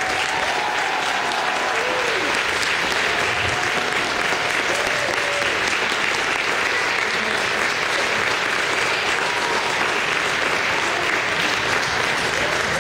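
A crowd applauding steadily, with a few voices cheering over the clapping.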